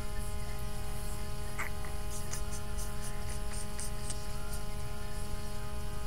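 Steady electrical mains hum, with a few faint short clicks in the middle.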